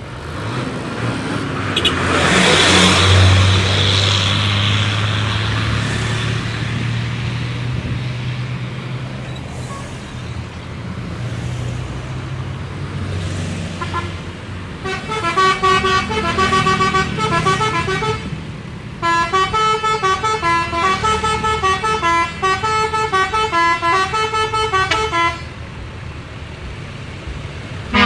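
Melodic multi-tone 'telolet' bus horn on a Pandawa 87 bus, playing a stepping tune in two runs: about three seconds long midway, then about six seconds. Earlier, a large vehicle's engine hum and rush swell loudly a couple of seconds in and fade slowly.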